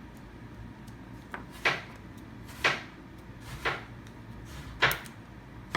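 Five short, sharp clacks about a second apart as the plastic toy packaging is worked at by hand.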